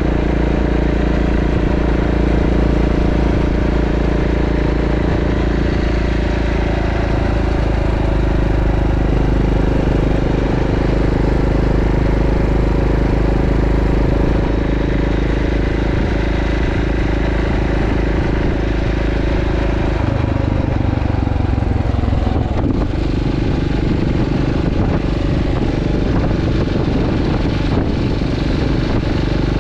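Motorcycle engine running steadily at cruising speed along with wind rush. The engine note changes about two-thirds of the way through.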